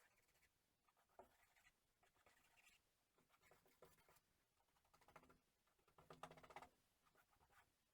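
Near silence with faint, intermittent scratching and rubbing sounds, and a brief squeak about six seconds in.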